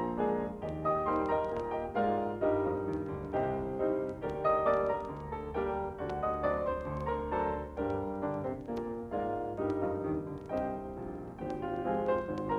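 Piano music with many quick notes changing throughout.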